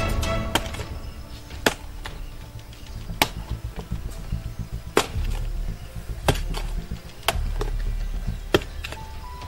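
A hand hoe chopping into packed dirt, striking about once every second or so as a hole is dug.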